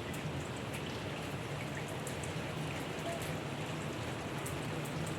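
Heavy rain falling steadily, with scattered sharp ticks of individual drops striking surfaces.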